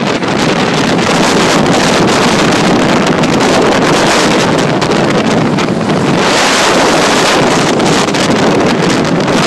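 Loud, steady wind rushing and buffeting over the microphone of a car travelling at highway speed, with the engine and road noise blended underneath.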